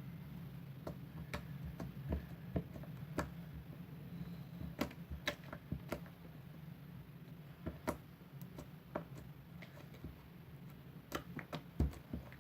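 Small ball of homemade slime being pressed and folded in the hands, giving irregular sharp clicks and pops from trapped air, a few each second, over a steady low hum.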